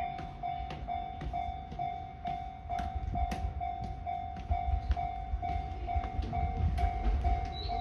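Japanese level-crossing warning bell ringing steadily at about two strokes a second, while the low rumble of an approaching train builds from about halfway in.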